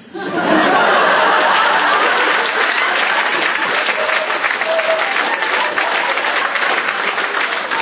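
Theatre audience applauding, breaking out suddenly and holding steady throughout.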